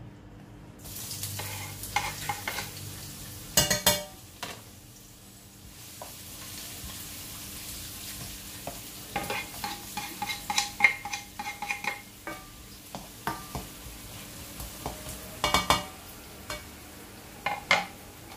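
Food frying in oil in a pan: a sizzle starts about a second in. A utensil stirs it, with sharp knocks and scrapes against the pan throughout.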